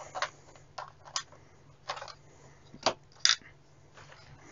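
Hard plastic clicks and knocks, about six in all, as a plastic clip-on back piece is handled against and taken off a handheld multimeter's plastic case; the sharpest click comes about three seconds in.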